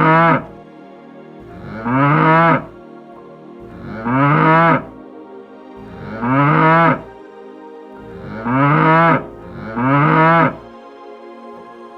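Cattle mooing: six short, identical moos about every two seconds, each rising and then falling in pitch, over soft background music.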